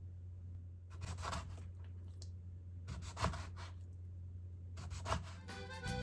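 Several short scratching, rubbing sounds, about a second or two apart, over a steady low hum.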